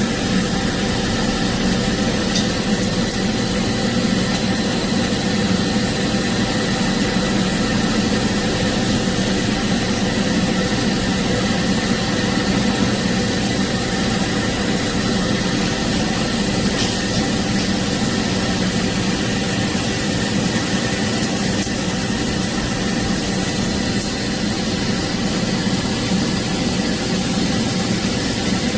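Steady hum with an even hiss over it, with no change, from TIG welding on a carbon steel pipe joint: the argon arc and the running welding set.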